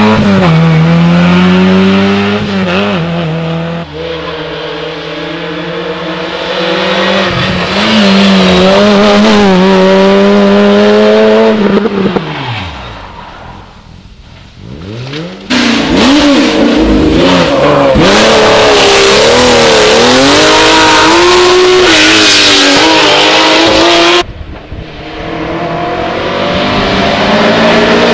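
Rally cars passing one after another at full speed, engines revving hard and changing gear, the pitch dropping as each goes by. The sound switches abruptly twice from one car to the next.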